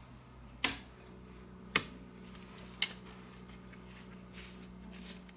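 A few small sharp clicks about a second apart as a tool prises the plastic middle frame off a smartphone, over a faint steady hum.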